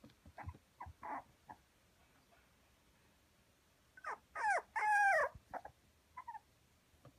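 Toy poodle puppy whimpering: two high-pitched, falling whines about four seconds in, the second longer and louder, then a short faint one. A few soft taps come before them.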